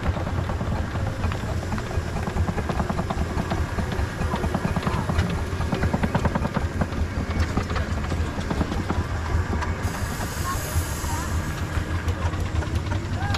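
Miniature steam traction engines and a miniature steam wagon running past at close range, their exhausts giving rapid, overlapping chuffs over a low rumble. A burst of hiss joins in about ten seconds in and lasts a couple of seconds.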